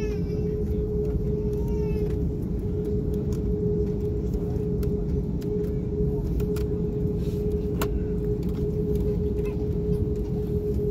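Cabin noise inside an Airbus A330neo taxiing on its Rolls-Royce Trent 7000 engines: a steady low rumble with one steady mid-pitched tone over it, holding level without any spool-up.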